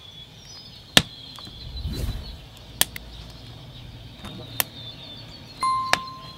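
A log and a split stick being laid on a small twig campfire: several sharp snaps or clicks and a soft low handling thud about two seconds in. Near the end comes a short beep-like tone, and a faint steady high tone sits in the background.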